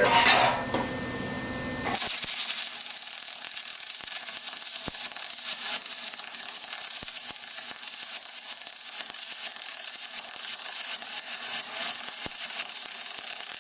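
MIG welding arc from a spool gun running a bead on aluminium under argon: the arc strikes about two seconds in, then hisses and crackles steadily with a few sharp pops.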